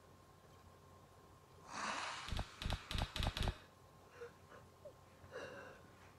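A person's sharp gasp, then about five quick, forceful breaths in a row, followed by faint breathing.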